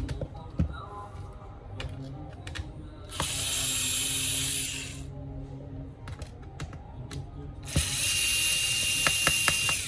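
Small electric screwdriver whirring in two bursts, about one and a half and two seconds long, while undoing the screws inside a laptop, with small clicks of parts being handled between them.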